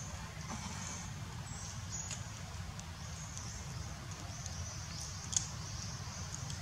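Quiet outdoor ambience: a steady high hum over a low rumble, with a few faint short squeaks from a newborn long-tailed macaque being handled.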